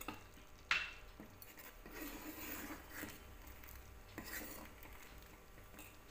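Steel ladle stirring dal aamti in a stainless steel pot: a sharp metallic clink about a second in, then several soft scrapes and swishes of the ladle against the pot.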